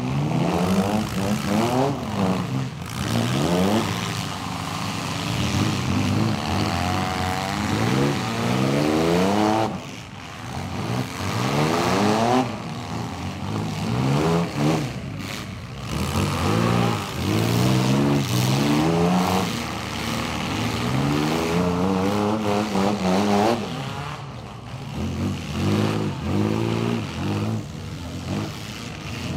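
Several compact demolition-derby cars' engines revving hard, pitch climbing and dropping again and again as the cars accelerate and back up, with occasional knocks of cars colliding.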